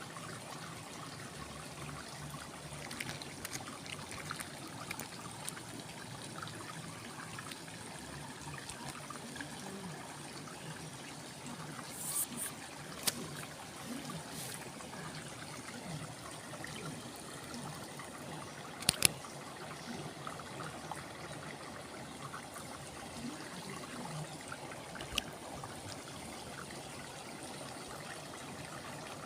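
Water trickling and running steadily in a small stream, with a few sharp clicks or knocks, the loudest a quick pair about two-thirds of the way through.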